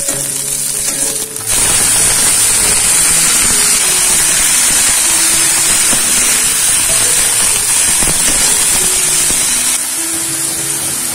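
Oil sizzling in a wok as sliced bitter gourd stir-fries with chillies, shallots and garlic. The sizzle jumps louder about a second and a half in, then holds steady. Background music plays throughout.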